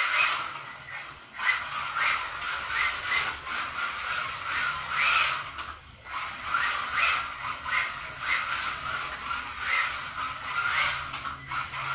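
Kyosho Mini-Z AWD radio-control car drifting on smooth stone floor tiles: its small tyres squeal and scrub in short, repeated bursts. The sound breaks off briefly about a second in and again about six seconds in.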